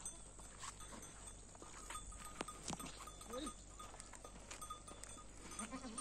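A herd of goats on the move: scattered clicks of hooves on a paved road and one short, faint bleat about three and a half seconds in.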